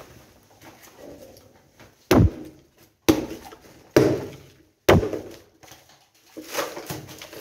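Demolition work on wood and rubble: four sharp, wooden-sounding knocks about a second apart, each dying away quickly, with weaker knocks and rustling between them.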